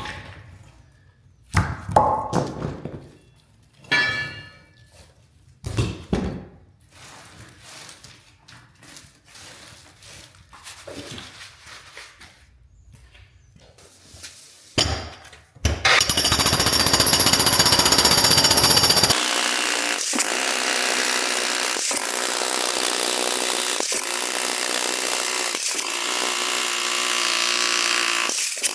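A string of separate heavy knocks and thuds of concrete being struck or handled. About halfway a jackhammer starts up and runs continuously, a loud, dense rattle as it breaks concrete slab.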